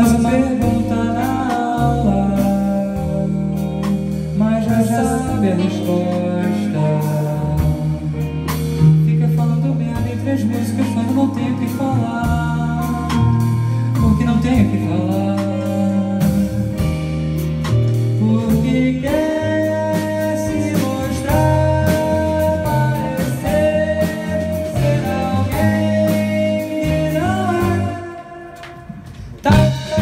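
Live rock band playing a song: a male singer over electric guitar, electric bass, keyboard and drum kit. The band drops out briefly near the end and comes back in with a loud hit.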